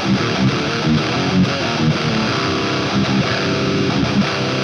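Heavily distorted electric guitar playing a fast, chugging death metal riff through the Grindstein HM-2-style distortion plugin, its chainsaw channel blended in at about a third with the bottom channel.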